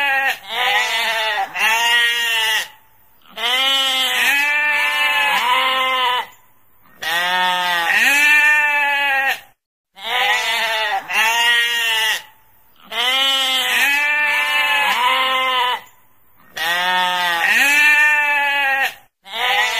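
Sheep bleating over and over, in runs of several bleats each, with a brief pause every few seconds.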